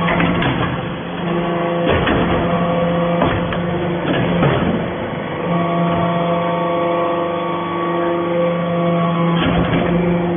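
Hydraulic metal-chip baler running: a steady motor-and-pump hum that drops out briefly twice and comes back, with several sharp clanks.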